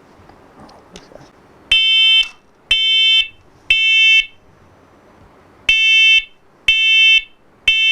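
Photoelectric combination smoke and carbon monoxide alarm sounding its test: three loud, shrill half-second beeps about a second apart, a pause, then three more. This is the three-beep pattern that signals smoke.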